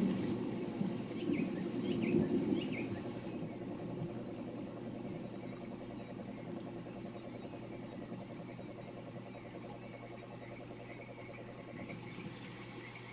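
Rolling thunder rumbling and fading away over the first few seconds, with a few brief bird chirps over it. After that, a quieter steady rain-and-nature background with a faint pulsing trill and a few more chirps near the end.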